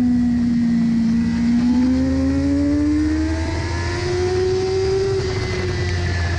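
Superbike engine running hard at high road speed, its pitch dipping slightly and then climbing steadily as the bike accelerates, before easing off near the end, over a steady rush of wind noise.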